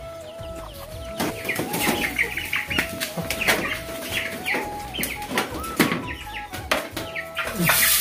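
Young black fighter chickens calling in short clucks and chirps every second or so as they crowd toward feed being poured, with scattered sharp taps. A thin background music melody runs underneath.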